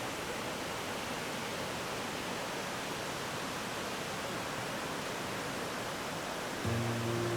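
The Yudaki waterfall rushing: a steady, even roar of falling water. Near the end, a few steady low tones join.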